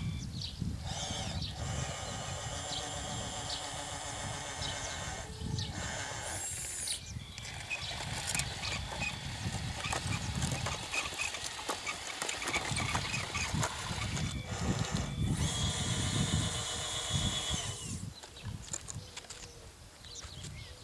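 Electric drive motors and gearboxes of an RC tracked loader whining as it drives, starting and stopping several times in runs of a few seconds, over low wind rumble on the microphone.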